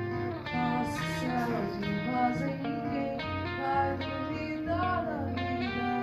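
A solo performer plays acoustic guitar while singing.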